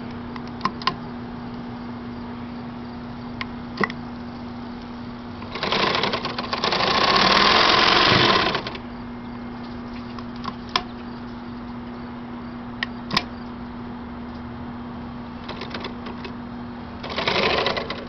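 1915 Singer 31-15 industrial sewing machine driven by its clutch motor: the motor hums steadily, the machine is run in one loud fast burst of stitching lasting about three seconds, and another starts near the end. A few sharp clicks come in between.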